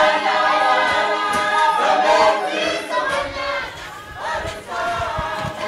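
A choir of voices singing together in harmony. It gets quieter about halfway through, and a few low thuds come in near the end.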